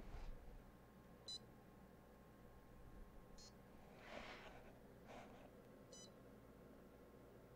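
Three faint, short, high-pitched electronic beeps a couple of seconds apart, with a soft rustle about four seconds in.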